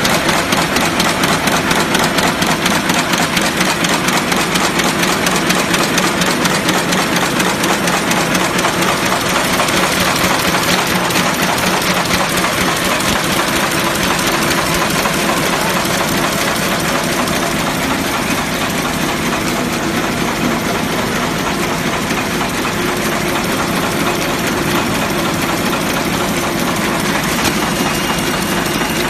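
HD190 roll-feed block-bottom kraft paper bag making machine running at production speed: a loud, steady, fast mechanical clatter.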